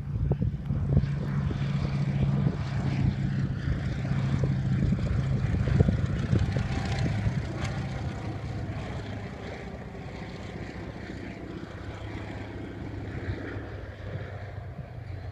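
Single-engine vintage propeller plane droning as it passes low overhead, coming in to land with its gear down. It is loudest about six seconds in, then fades steadily as the plane moves off down the runway.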